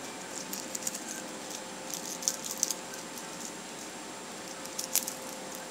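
Dry, crispy dehydrated kale chips crackling and rustling as a hand picks through them, with a few sharp crunches about two seconds in and again near the end, over a faint steady hum.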